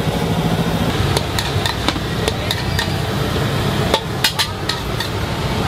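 Metal cooking utensils clanking against a wok and pots as noodles are cooked: a string of sharp metallic clacks, bunched most tightly about four seconds in, over a steady low rumble.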